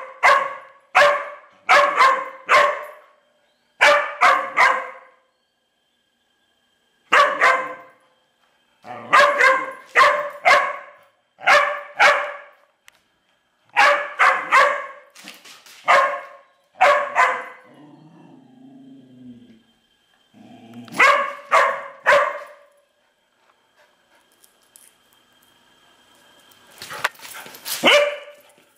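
Large black dog barking repeatedly at a turtle, in quick runs of two to five barks separated by short pauses.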